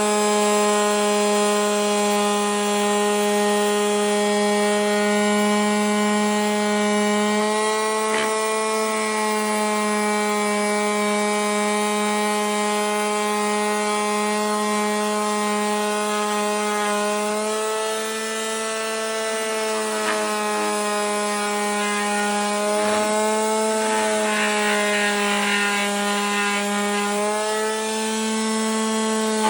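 SKIL corded detail sander running and sanding wood: a steady high electric hum over a rough sanding rasp, its pitch shifting slightly a few times.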